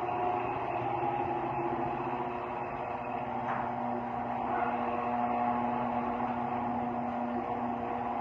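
LiftMaster garage door opener running with a steady motor hum as it drives the door on its new rollers; a second, deeper tone joins about three seconds in.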